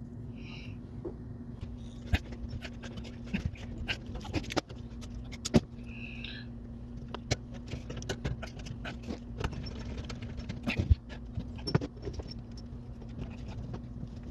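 Scattered clicks and light knocks of hands and tools working on a dishwasher's defective water inlet valve as it is replaced, over a steady low hum. Two short high squeaks, about half a second and six seconds in.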